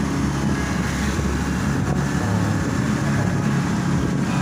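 Honda PCX scooter's single-cylinder engine working hard up a steep climb, its pitch shifting a little about two seconds in, with wind noise on the microphone.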